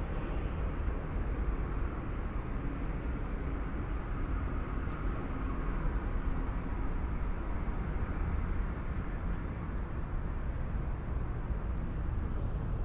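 Steady city traffic ambience: a continuous low rumble of passing vehicles that swells slightly now and then, with no single sound standing out.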